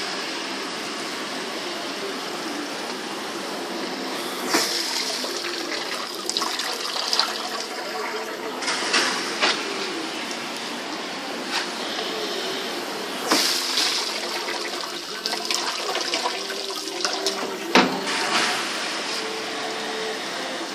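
Elframo D40 commercial dishwasher in its wash phase: a steady rush of water spraying inside the closed tank, with louder swishes now and then.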